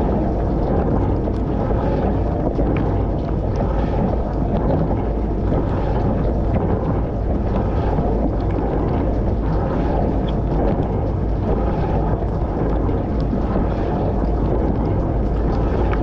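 Dishwasher wash cycle heard from inside the tub: water spraying and sloshing against the dishes, racks and camera, over a steady low hum, with a few light ticks of drops and spray hitting close by.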